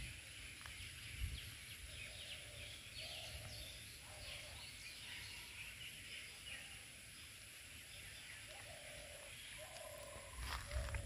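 Open countryside ambience: birds chirping and calling over a low rumble of wind noise on the microphone.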